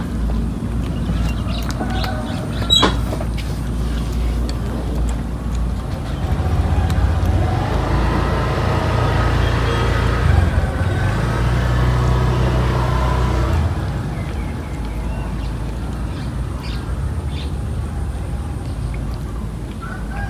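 A motor vehicle's engine passing, its hum swelling about six seconds in and fading away about eight seconds later, over a steady low rumble, with one sharp click early on.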